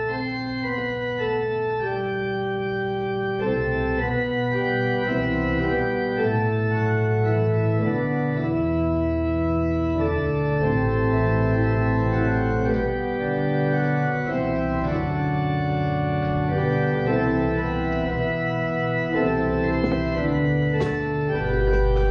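Organ playing slow, sustained chords with a held bass line, the chords changing every second or two. A few sharp knocks sound near the end.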